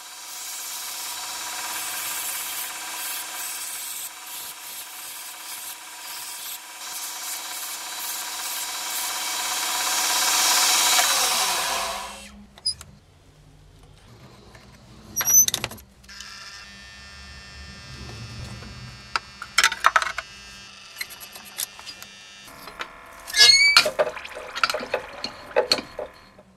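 Belt grinder running with a steel damascus knife blank pressed to the belt, a steady grinding noise until about 12 seconds in, when the motor winds down. Then quieter knocks and clatter of metal tongs and the heat-treat kiln, with a burst of sharp crackling near the end as the hot blade is quenched in oil.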